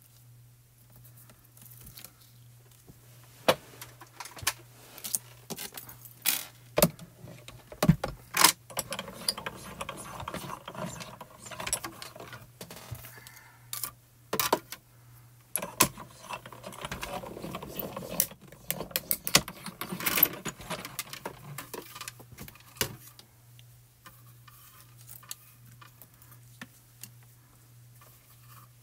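Acrylic cutting plates and a metal die clicking and knocking as they are stacked on a die-cutting platform, then a hand-cranked Spellbinders die-cutting machine running the plate sandwich through its rollers in two stretches of a few seconds each, grinding as it cuts.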